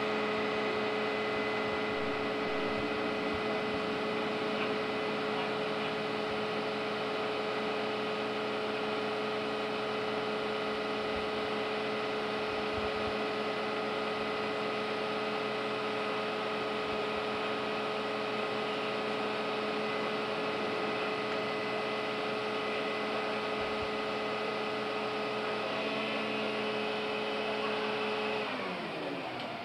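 Smeal aerial ladder truck's engine and aerial hydraulics running with a steady machine hum. Near the end the pitch falls and the sound drops as it winds down.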